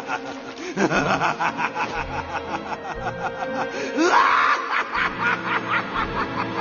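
Rapid snickering laughter, a quick run of short repeated laughs, over background music.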